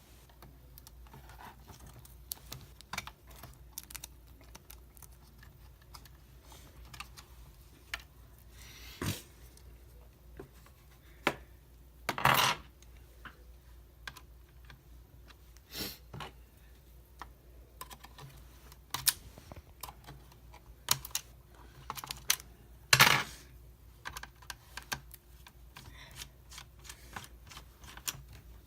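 Scattered small clicks, taps and light plastic knocks from hands and tools working on an HP Pavilion g7 laptop's casing during disassembly, with a few louder half-second noises about twelve and twenty-three seconds in.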